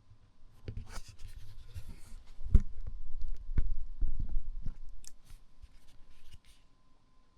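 Handling noise: hands rubbing and scraping against objects, with several knocks, the loudest about two and a half seconds in, dying away near the end.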